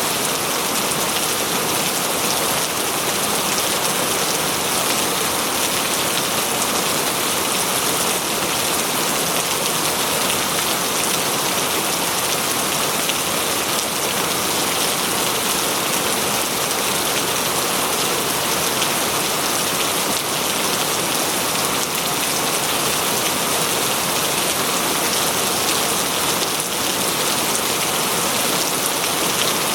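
Steady rain falling on a forest, an even hiss with fine pattering drops.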